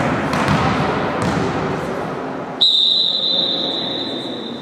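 Volleyball referee's whistle: one long, steady, high blast of about two seconds starting a little past halfway. Before it, general sports-hall noise with a couple of thuds.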